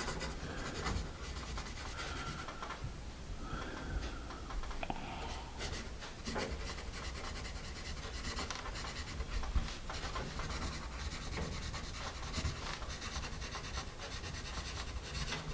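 A Paper Mate EverStrong No. 2 pencil's graphite lead scratching across paper as cursive is written, a continuous run of small, irregular strokes.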